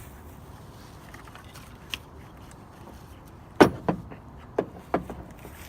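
A few sharp clicks and knocks of small hard parts being handled and fitted on an edger, the loudest about three and a half seconds in, followed by three or four lighter ones.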